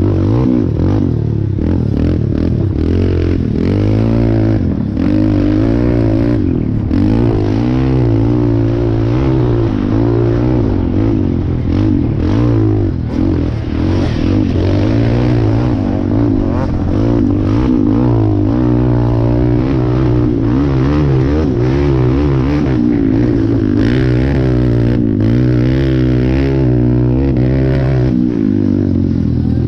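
Motorcycle engine running hard and revving up and down without a break as the bike is ridden, the pitch rising and falling with the throttle.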